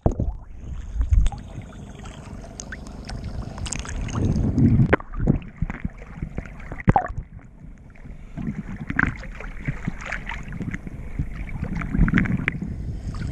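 Small waves sloshing and splashing over a waterproof action camera at the water's surface, with irregular sharp splashes and low rumbling washes, and some wind on the microphone.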